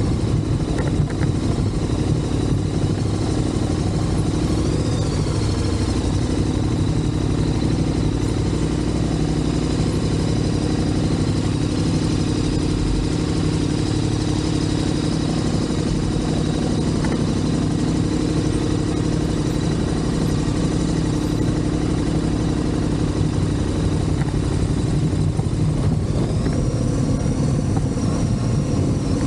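Motorcycle engine running steadily under way, heard from on board, with small changes in engine pitch and a slight rise near the end.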